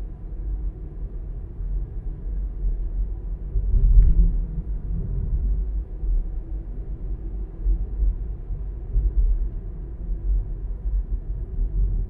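Low, steady rumble of a car driving slowly along a street, with a brief thump about four seconds in.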